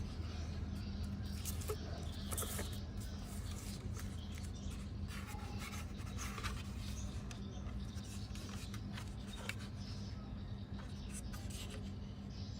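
Faint scratching and rubbing with scattered light clicks over a steady low hum.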